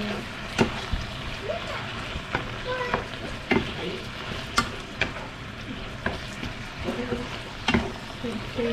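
Beef and cauliflower sizzling in a hot pan while being stir-fried. A spatula clacks and scrapes against the pan every second or so.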